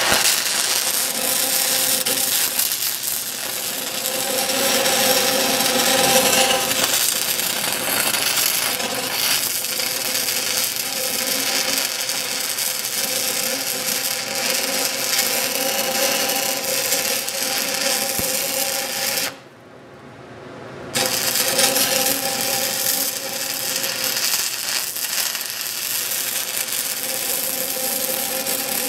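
Stick-welding arc crackling steadily while a root pass is run on pipe with the heat set at about 86 amps. The arc breaks off for a second or two about two-thirds of the way through, then strikes again and crackles on.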